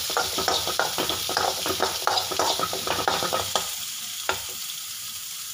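Chopped onion and garlic frying in oil in a metal pan, sizzling steadily while being stirred, the utensil scraping and clinking against the pan. The stirring stops about three and a half seconds in, leaving the sizzle alone.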